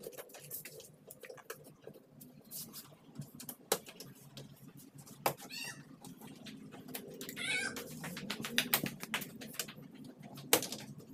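A cat meowing twice, wavering calls about five and seven seconds in, amid scattered sharp clicks and knocks of parts and tools being handled.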